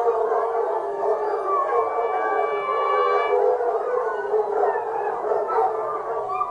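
A pack of foxhounds howling together, many voices wavering and overlapping. A hunting horn sounds one long, steady note about two seconds in.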